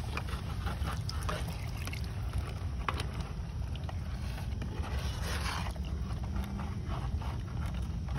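A metal spoon stirring and clinking against the side of a pot of soupy curry, a few faint scrapes and taps over a steady low rumble.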